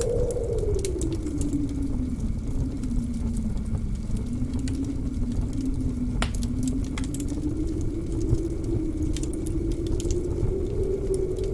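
Blizzard wind howling over a low rumble, its pitch sliding down over the first few seconds and slowly rising again, with a wood fire crackling and popping in the fireplace; one sharper pop about halfway.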